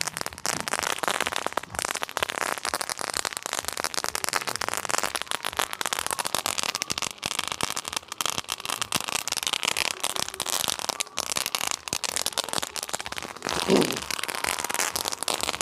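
Firework crackling without a break: a dense, rapid stream of small pops and crackles.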